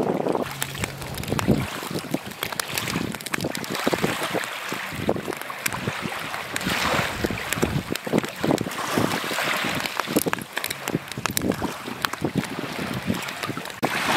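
Egg-filled sea urchin shells sizzling and crackling on a charcoal grill, many small sharp pops over a steady hiss, with wind buffeting the microphone.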